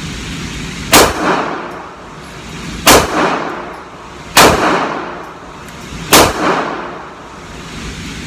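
Four shots from a Canik TP9SFX 9mm pistol, fired one to two seconds apart, each followed by a short echo. The pistol is cycling through a Glock 17/22 guide rod and recoil spring without jamming.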